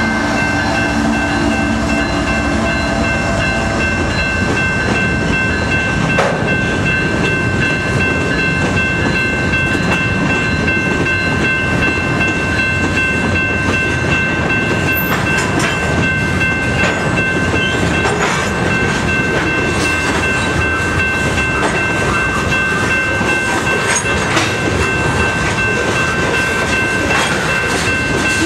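A freight train rolls through a grade crossing, its cars' wheels rumbling and clacking over the rails. For the first few seconds a pitched tone from the passing GE ET44AC locomotive can be heard, and a steady high ringing from the crossing signal's bell runs throughout.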